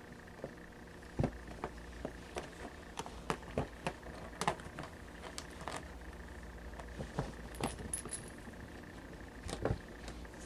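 Kittens playing and scuffling on a carpet: a run of irregular light clicks and taps, some sharper than others, over a steady faint hum.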